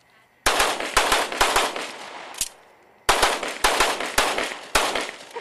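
Semi-automatic pistol fired rapidly at a practical-shooting stage: a quick string of shots starting about half a second in, a short pause around two and a half seconds, then a second quick string.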